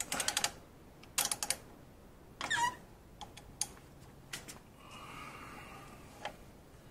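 Short runs of quick metallic clicks and taps from a tool on the 14 mm Allen-head access plug in the engine's side cover, loosening it to reach the end of the crankshaft.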